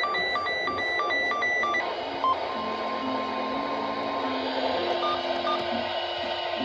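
NOAA Weather Radio broadcast heard through a receiver with static hiss. It opens with rapid alternating two-pitch data beeps, the SAME digital header of an EAS Required Weekly Test, which stop a little under two seconds in. After a click, only hiss and a faint steady tone remain.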